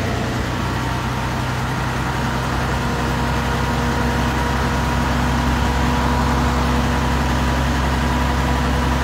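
Heavy truck's diesel engine idling steadily, building up air pressure for the air brakes before it can drive off.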